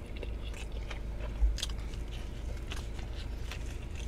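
A person biting into and chewing a brisket sandwich on a soft bun, close to the microphone: scattered small wet mouth clicks, with a soft thump about a second and a half in.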